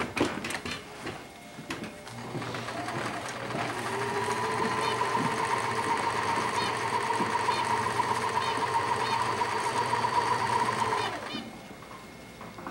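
Electric sewing machine stitching a seam. After a few clicks, the motor speeds up about two seconds in, runs steadily, and stops about a second before the end.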